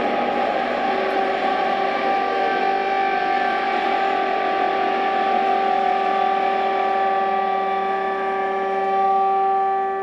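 Improvised polymicrotonal ensemble music: a dense, noisy wash of sound that gradually thins while, from about a second in, two steady held notes about an octave apart sound underneath and hold on.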